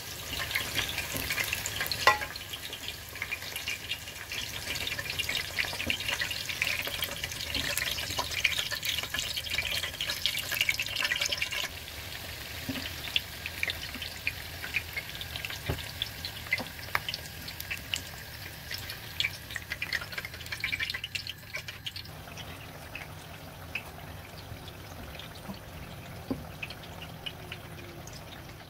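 Hot cooking oil sizzling and crackling as eggplant slices fry, a dense spatter of small pops. It drops in level about twelve seconds in and again about twenty-two seconds in. A single sharp click comes about two seconds in.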